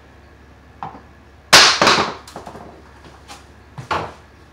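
Hard objects being handled: a loud clatter about a second and a half in, a sharp knock followed by a few rattling strikes, with a few lighter knocks and clicks around it.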